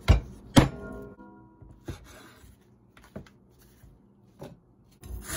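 A Chinese cleaver chopping a raw pork chop on a wooden cutting board: two hard chops close together, the second followed by a brief metallic ring, then a few lighter knocks.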